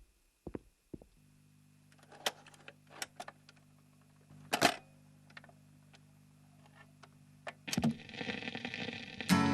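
Scattered sharp clicks and knocks over a low steady hum that comes in about a second in; near the end a swell of sound rises and acoustic guitar strumming begins.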